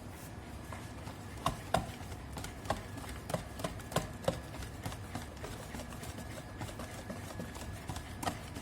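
Irregular light clicks and knocks of a spoon or utensil against a mixing bowl as cake batter is worked, with a cluster of sharper knocks between about one and a half and four seconds in.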